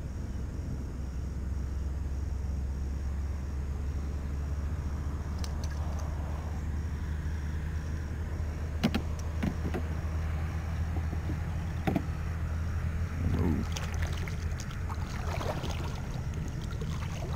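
A steady low rumble, with a few sharp knocks of fishing gear against a plastic kayak and small splashes of water around the hull near the end.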